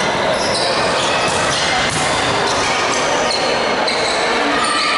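Indoor volleyball rally: the ball being struck and sneakers squeaking on the hard court, with players calling out. It all echoes in a large gym.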